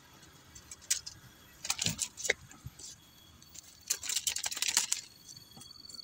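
Dry leaf crackling and rustling as it is picked up and handled, in quick crisp crackles: a few about two seconds in, then a dense run around four to five seconds in.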